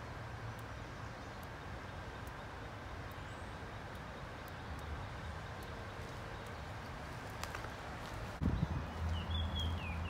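Quiet woodland ambience with a few faint ticks. Near the end there is a thump and then footsteps on a dirt trail, with one short, falling bird chirp.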